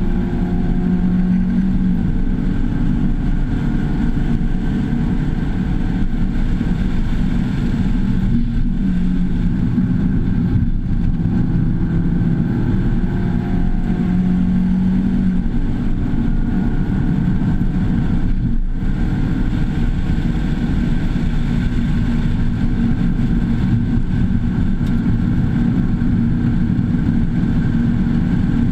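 Mazda2's 1.5-litre four-cylinder engine running hard at track speed, heard from inside the cabin along with road and wind noise. The drone holds steady, broken by a few brief dips.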